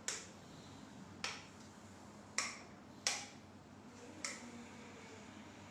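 Five sharp, short snapping clicks, spaced about a second apart.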